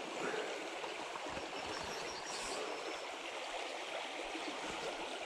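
Shallow, low-running river flowing over stones: a steady rush of water.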